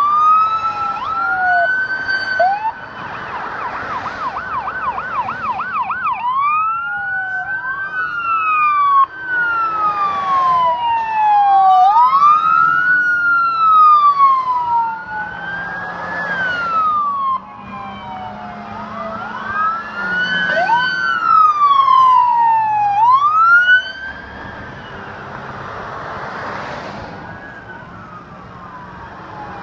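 Police car electronic sirens wailing as a line of police cars drives past, several sirens overlapping and rising and falling every few seconds. About three seconds in, one switches briefly to a fast yelp. The sirens swell as each car comes by and are fainter near the end.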